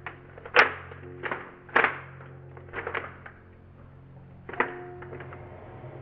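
GTS2M 3x3 speed cube being turned by hand: irregular clicks and clacks of the layers snapping round, a few a second with short pauses between.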